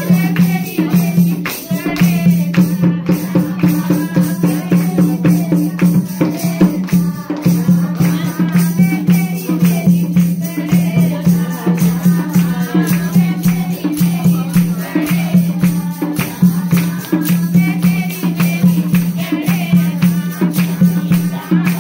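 Lively folk dance music with quick, dense percussion over a steady low drone, with a singing voice on top.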